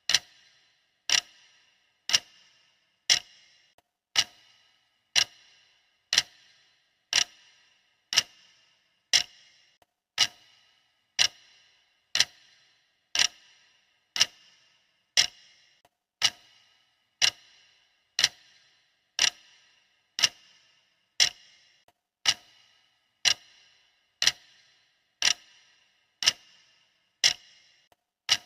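Clock ticking steadily, about one sharp tick a second, each tick with a short bright ring.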